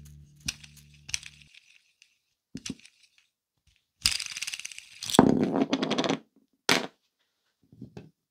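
A threaded steel rod being turned into the metal insert of a wooden knob: scattered clicks and knocks of handling, then about two seconds of rasping, scraping threads near the middle, the loudest part.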